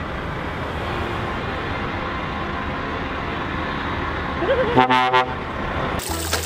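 Scania truck pulling a tank trailer, its engine running as it moves past, then a short blast of an air horn about five seconds in.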